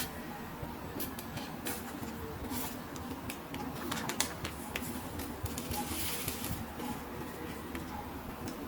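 Small plastic toys and packaging being handled and unboxed: irregular light clicks, taps and rustles over a low steady hum.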